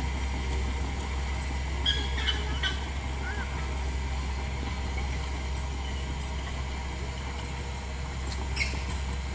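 Komatsu D31P bulldozer's diesel engine running steadily, with a few faint high squeaks over it.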